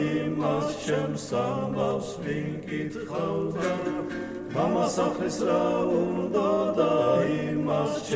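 Georgian folk song sung by a male vocal ensemble, several voices holding notes in harmony, as background music.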